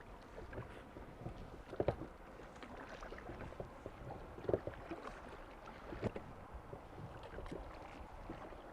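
River water lapping against a drifting boat, with scattered light knocks and clunks from the boat, the loudest about two, four and a half and six seconds in.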